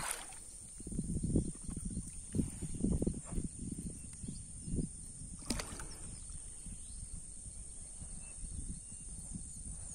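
Water splashing and sloshing around a peacock bass held in a lip grip at the side of a kayak and eased back into the water for release, in irregular low splashes, with a single sharp click about five and a half seconds in.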